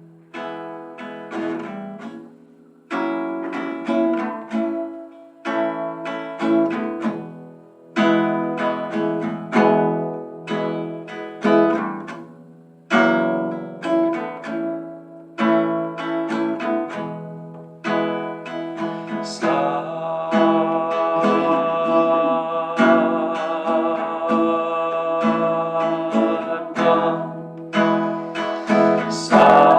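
Acoustic guitar music: chords struck about every one and a half to two seconds, each ringing out and fading. About two-thirds of the way through, a held, wavering melody line joins over the guitar.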